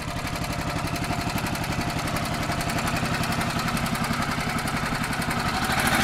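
SMG Champion bandsaw sawmill's carbureted gasoline engine running just after starting, a steady, evenly pulsing beat that grows slightly louder toward the end, then cuts off suddenly.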